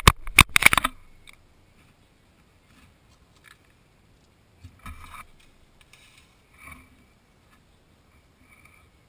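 Card-and-plastic packaging crinkling as it is handled, loud for about the first second, followed by a few faint small clicks and scrapes of hand work at the motorcycle's front wheel.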